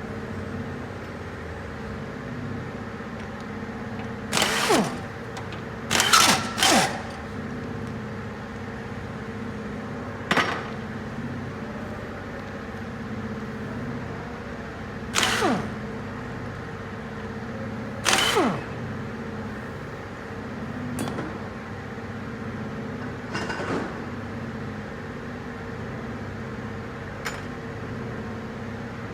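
Short bursts of a socket power wrench working engine bolts, about seven in all, each ending in a quickly falling whine as the tool spins down. A steady hum runs underneath.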